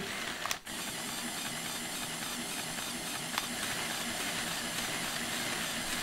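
Small Power Functions electric motors of a Mould King 17023 building-block bulldozer running steadily, driving its pneumatic pumps to move the excavator arm, with a brief drop about half a second in.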